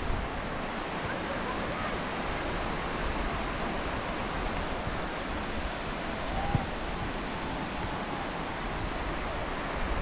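Steady wash of ocean surf and wind on a sandy beach, with wind on the microphone. A single brief knock about six and a half seconds in.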